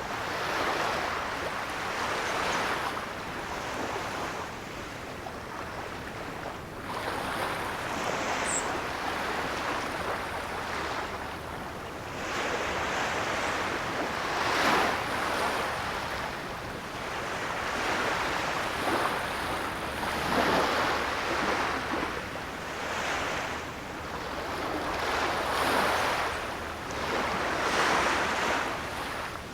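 Ocean surf breaking and washing on a shore, swelling and falling away every few seconds.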